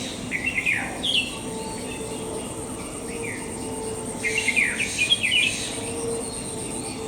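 Birds chirping in two quick flurries of short, falling calls, one near the start and one about two-thirds of the way through, over a steady background hiss.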